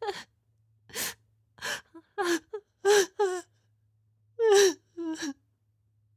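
A person crying: a string of short, sharp gasping breaths and brief wavering, falling sobs, with a pause of about a second before the last few.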